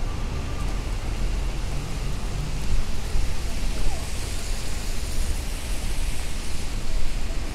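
Traffic on rain-soaked city streets: a steady hiss of tyres on wet pavement and falling rain over a low rumble of engines.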